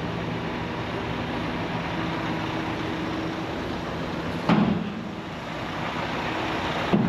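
Tri-axle dump truck's engine running steadily as its raised bed empties a load of demolition debris, with two sharp bangs, one about four and a half seconds in and one near the end.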